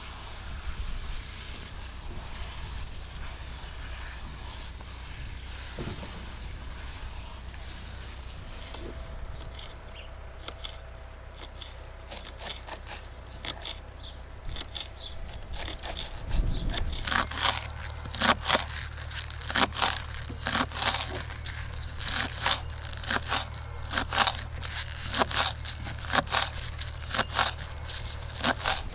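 Kitchen knife chopping green onions on a wooden cutting board: a steady run of sharp chops, about two a second, starting a little past halfway through.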